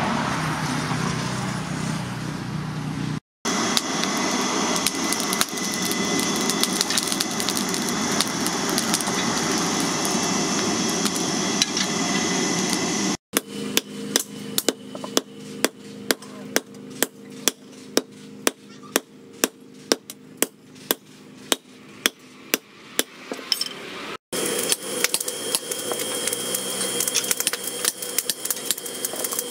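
Hand hammer striking red-hot steel on a steel post anvil, steady blows about two a second, as a billhook blade is forged. The sections before and after hold denser, busier workshop noise with many rapid clicks.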